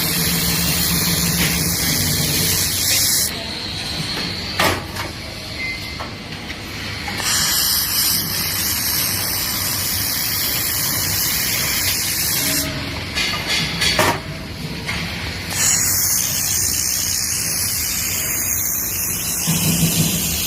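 Steady gas hiss from a handheld fiber laser welding machine, cutting out twice for a few seconds and starting again.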